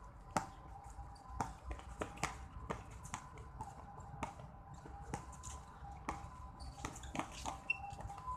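Basketball bouncing on an outdoor concrete court as it is dribbled: faint, irregular sharp bounces, about one or two a second, with a faint steady high tone behind them.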